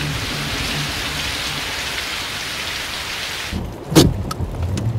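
Steady hiss of heavy rain, cut off suddenly about three and a half seconds in, followed by a single sharp knock.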